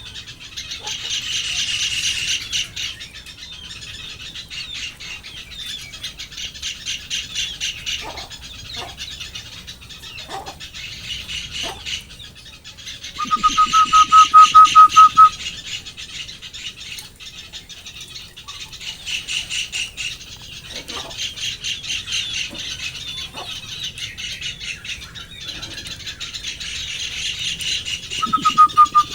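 Bird calling: repeated bursts of fast, high chattering, and about halfway through a loud, even-pitched trill lasting about two seconds.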